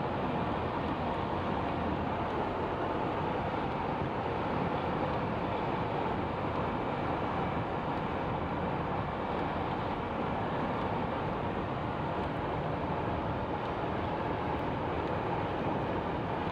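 Steady road noise inside a moving car: tyres hissing on a wet road.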